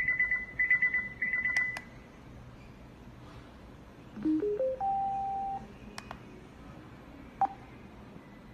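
Abuzhen Bluetooth speaker alarm clock beeping its alarm in quick high-pitched pulses, cut off with a click from a top button about two seconds in. Around four seconds in it plays a rising four-note chime as it switches to Bluetooth mode, followed by two button clicks, the second with a short beep.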